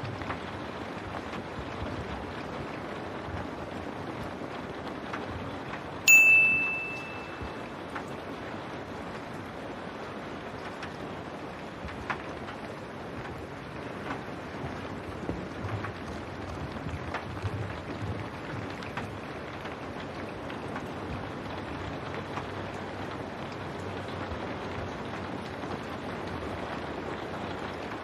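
Steady rain on window glass, an even hiss throughout. About six seconds in, a single loud, high metallic ping rings out and fades within about a second.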